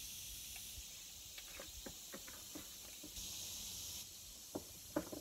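Steady high-pitched drone of insects, cicadas, in the surrounding trees, with a few faint short clicks scattered through it, the loudest near the end.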